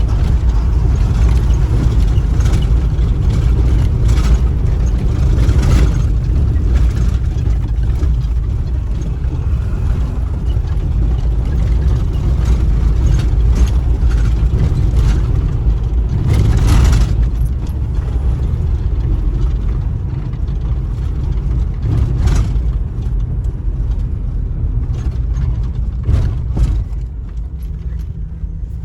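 A vehicle driving on a rough road under construction: a steady low rumble of engine and tyres, with occasional sharp knocks and rattles.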